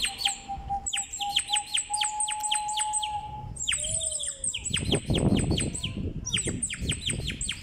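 Clay nightingale whistle blown in warbling trills: phrases of rapid, high, falling chirps, several a second, broken by short pauses. A steady lower whistle tone sounds under the trills for the first half.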